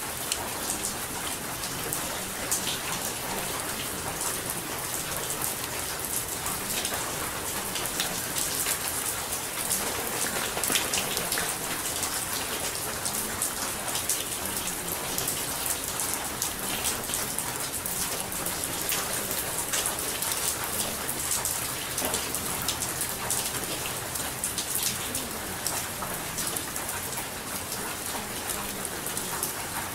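Steady rain falling, a dense even patter of many small drops.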